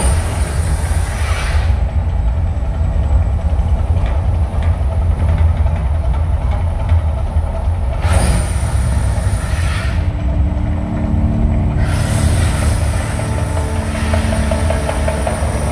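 Mirage volcano show erupting: a deep continuous rumble under three bursts of hissing gas flame jets, one at the start, one about eight seconds in and a longer one about twelve seconds in.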